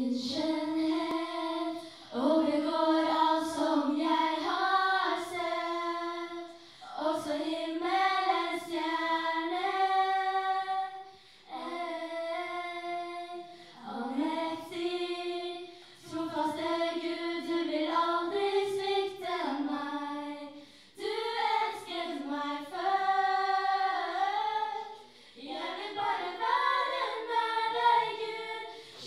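A small group of young women singing together into microphones through a PA, with no instruments. They sing in phrases of a few seconds with short breaks between.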